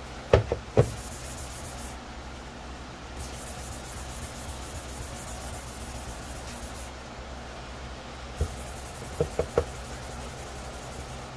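A plastic helmet shell being hand-sanded with a very fine sanding sponge: a steady scratchy rubbing. There are two sharp knocks near the start and a quick run of knocks near the end.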